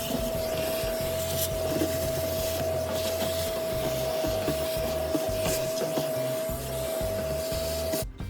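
A vacuum cleaner running with a steady motor whine and rushing hiss, its nozzle scraping and rubbing over the floor; it cuts off suddenly near the end.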